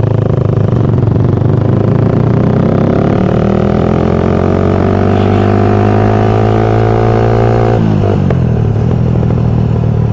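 Suzuki Satria FU's 150cc single-cylinder engine pulling under acceleration, its pitch rising steadily for several seconds, then dropping abruptly near the end as the throttle is closed or a gear is shifted. The rider is listening for an odd fan-like "ming" whine from the bike.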